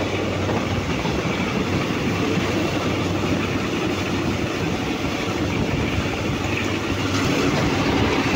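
Passenger train running along the track: a steady rumble of wheels on rail over a low hum, growing a little louder about seven seconds in.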